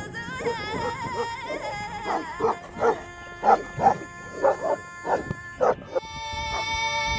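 Tibetan mastiff barking: a quick run of about nine barks in the middle, over background music with a singing voice.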